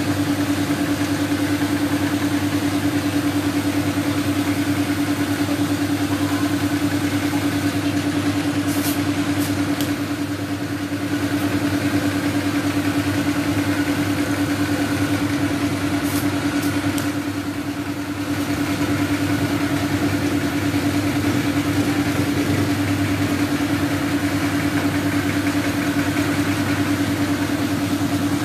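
A motor running steadily with a constant, even hum. A few sharp metallic clicks come about a third of the way in and again a little past halfway.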